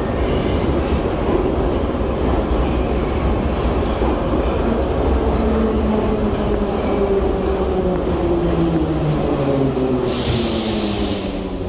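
Metro train in an underground station: a steady rumble of wheels and running gear, with a motor whine that falls in pitch as the train slows, and a loud burst of hiss near the end.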